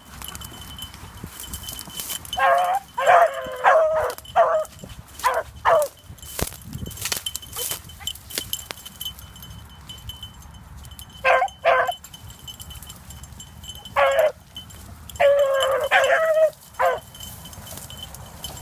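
Young beagles giving tongue on a rabbit trail: short, high yipping barks in bursts of several at a time, a few seconds apart.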